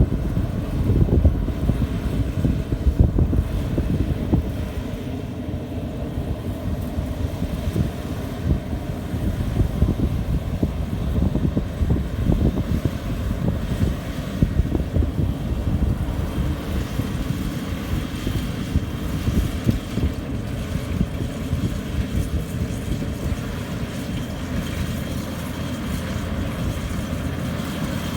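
Rice combine harvester running steadily while cutting paddy, a continuous low machine noise with some wind buffeting on the microphone.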